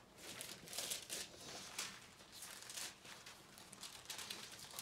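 Thin Bible pages being turned, a run of soft rustles and crinkles.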